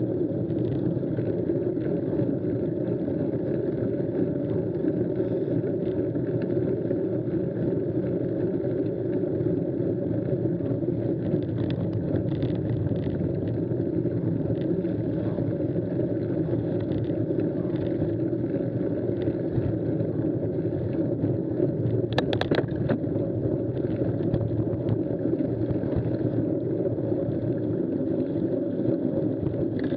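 Steady low rumble of mountain bike tyres rolling over a muddy, stony forest track, with the bike's rattle, picked up by a bike-mounted camera. A brief sharp clatter comes about two-thirds of the way in.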